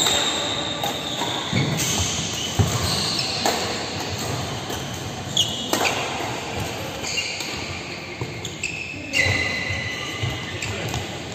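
Badminton rackets striking a shuttlecock in a fast doubles rally, sharp hits a second or two apart, with high squeaks of rubber shoe soles on the court floor and footfall thuds, echoing in a large hall.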